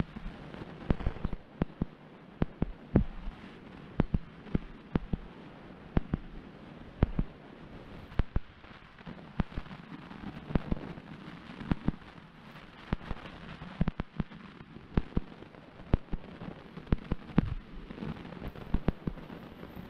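Water sloshing and slapping against a half-submerged waterproof camera housing at the surface, heard as irregular sharp pops and knocks, a few a second, over a low muffled hiss.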